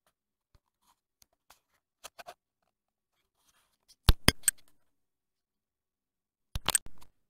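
Sharp clicks and light knocks in a small room: a few faint ticks, a pair about two seconds in, three loud clicks about four seconds in, and a short cluster near the end.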